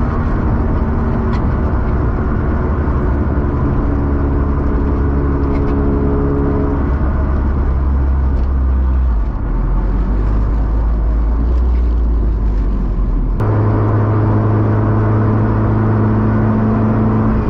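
Engine and road noise inside the cabin of a Honda hatchback while driving, heard before any sound deadening is fitted. The engine note is steady but changes abruptly a couple of times.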